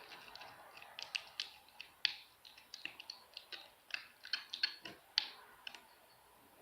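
Homemade slime mixture of glue and orange paint being stirred in a small container, giving irregular light clicks and taps, two or three a second.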